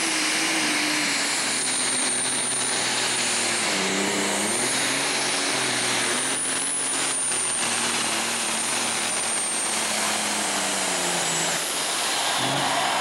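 Unlimited super stock pulling tractor's turbocharged diesel engine running hard under load as it drags the pulling sled, with a high turbo whistle over the engine note. The engine pitch dips and recovers about four seconds in and drops near the end.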